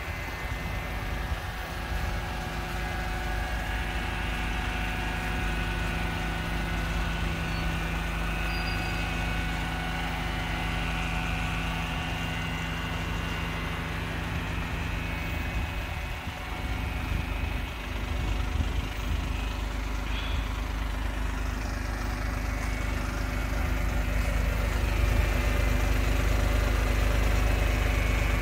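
Suzuki Multicab's K6A 658 cc three-cylinder engine idling steadily, a little louder in the last few seconds.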